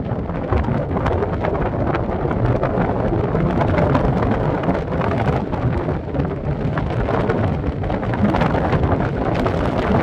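Wind buffeting the microphone, a loud, steady rumble with no let-up.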